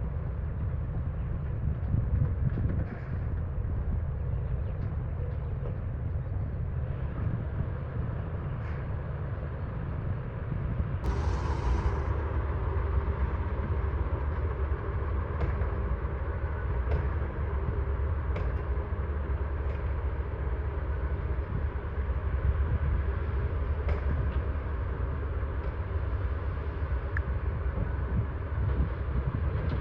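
Heavy diesel earthmoving machinery running with a steady low rumble, with a brief hiss about eleven seconds in and scattered light clicks and knocks.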